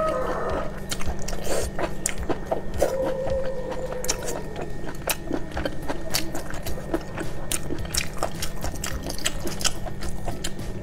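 Close-miked chewing of sea snail meat, with many sharp wet mouth clicks.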